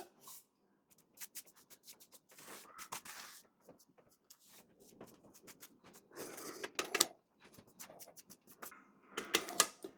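Scattered light taps, clicks and rubbing of a paintbrush being loaded and worked onto a door frame, busiest about six seconds in and near the end.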